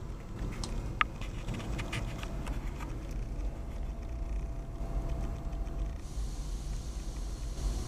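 Steady low rumble, with one sharp click about a second in and a few fainter clicks after it.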